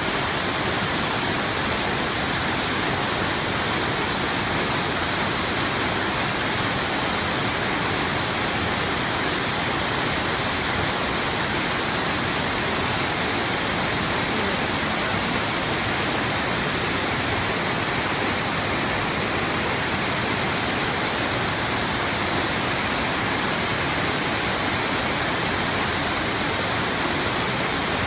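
Steady rushing noise, even and unchanging in level, with no distinct events.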